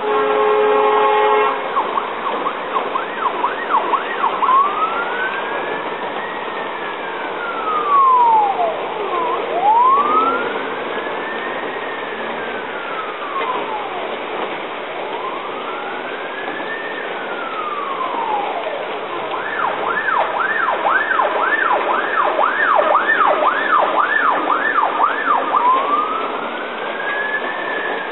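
Emergency vehicle siren sounding through a heavy rain downpour: slow wail sweeps rising and falling every four to five seconds, switching about two-thirds of the way through to a fast yelp of quick repeated sweeps, then back to the wail. A steady horn-like note sounds in the first second and a half, under the constant hiss of the rain.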